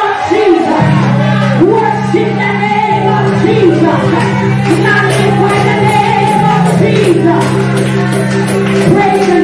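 A woman singing a gospel song into a microphone, her voice amplified in a small hall, over a steady low held chord that comes in about a second in.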